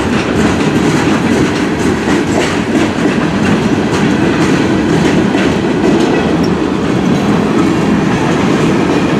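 Freight cars of a long CN freight train rolling past: a steady, loud rumble of steel wheels on rail with scattered clacks as the wheels cross rail joints.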